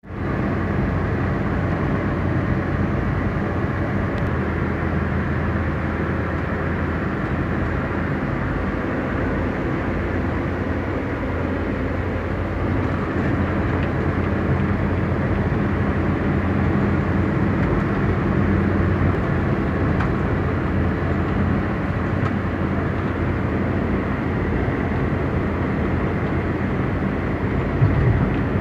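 A car driving: steady engine hum and road noise, with a brief louder thump near the end.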